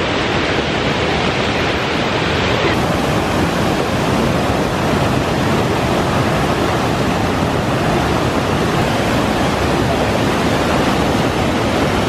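Sgwd Isaf Clun-Gwyn, a tiered river waterfall in full flow, close by: loud, steady rushing water, the sound getting a little brighter about three seconds in.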